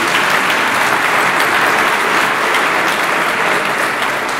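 Audience applauding, a dense, steady clapping from a large crowd.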